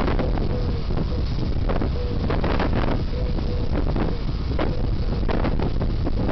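Wind buffeting an outdoor webcam microphone: a steady loud rumble with irregular gusty crackles.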